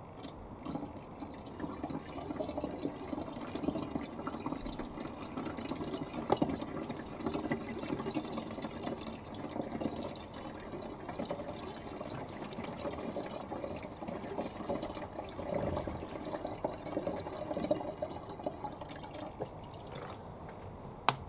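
Water pouring from a plastic bottle into a Nissan Micra K12's windscreen washer reservoir through its filler neck, a continuous uneven splashing fill that stops near the end, followed by a sharp click.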